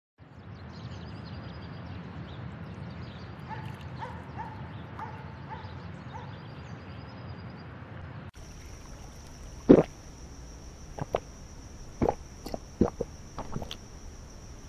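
A steady low rumble with a few faint chirps, which cuts about eight seconds in to a steady high thin tone with scattered water drips and plops at irregular intervals; the loudest drop comes about ten seconds in.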